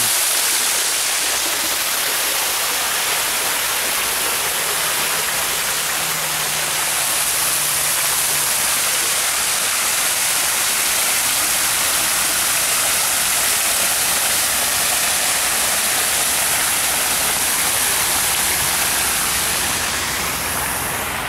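A decorative fountain's small waterfall, heard up close: water pouring and splashing steadily into the pool. The rush eases slightly near the end.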